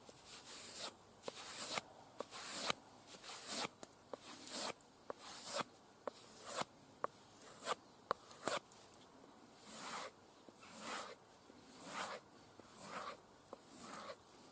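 Cold Steel SRK knife blade stroked along a strop loaded with polishing compound. It is an even series of swishing strokes, about one a second, with sharp clicks between the strokes through roughly the first half.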